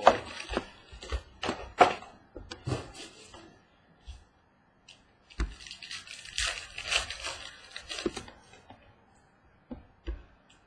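Trading-card packaging being handled and opened: scattered clicks and taps, then about three seconds of crinkly tearing of a foil or plastic wrapper, followed by a few more light clicks.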